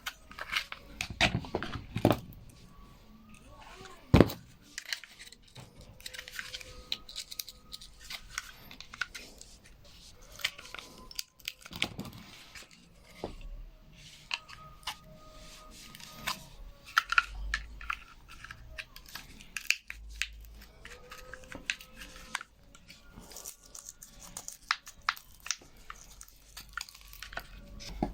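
Hand work on the parts of a washing machine's drain pump: irregular clicks, scrapes and rustling, with one sharp knock about four seconds in.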